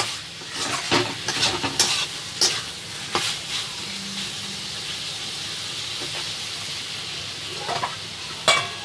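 Chicken, capsicum and onion frying in a pan with a steady sizzle, a spoon stirring and scraping against the pan in quick strokes for the first few seconds and again briefly near the end.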